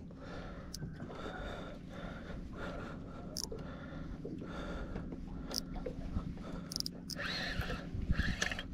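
Trolling reel being cranked against a hooked striped bass, its gears turning with a creaky, scraping sound and a few sharp ticks, over a steady low rumble.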